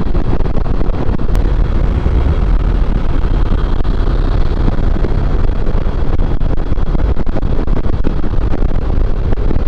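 Wind rushing over the microphone, mixed with the steady hum of a motor scooter and its tyres at highway speed, about 100 km/h.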